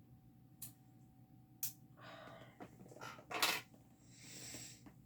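Small magnetic cover minder and its packaging being handled: two sharp clicks, then rustling and a louder clatter about three and a half seconds in, and a soft hiss near the end.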